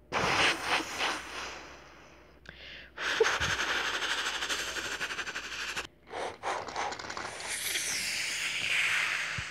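A person imitating a steam train with the mouth: breathy hissing and chuffing in three long stretches, the middle one fast and pulsing.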